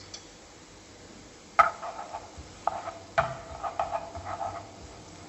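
A spatula knocking and scraping against a nonstick frying pan while stirring onions and mustard seeds frying in oil, the pan ringing after each knock. It starts about a second and a half in, with a few sharp knocks and then quicker, lighter strokes.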